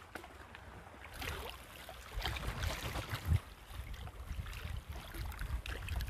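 Shallow sea water splashing and lapping at shoreline rocks as a hooked fish is drawn in, with a low wind rumble on the microphone and a single dull thump about three seconds in.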